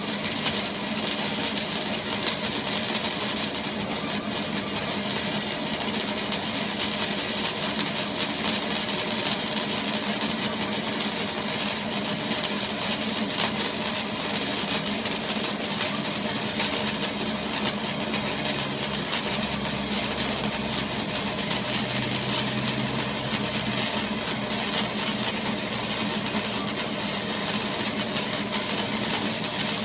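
An engine running steadily with a constant hum, and a deeper hum joining in about two-thirds of the way through.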